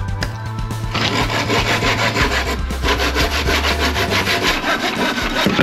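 Hand saw cutting timber in quick, even back-and-forth strokes, starting about a second in, over background music.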